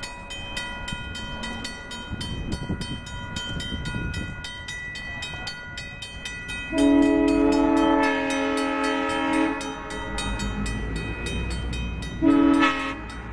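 Level-crossing bell ringing in rapid, even strokes as Canadian Pacific diesel locomotive 4069 approaches. The locomotive's horn sounds one long blast about seven seconds in and a short blast near the end.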